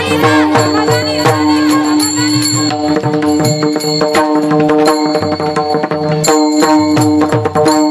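Kirtan devotional music: steady held instrumental notes over a quick, rhythmic drum beat, with a sung line dying away in the first second.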